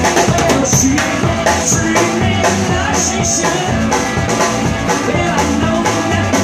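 Live rock-and-roll band playing an instrumental passage between sung lines: hollow-body electric guitar, upright double bass and drums keeping a steady beat.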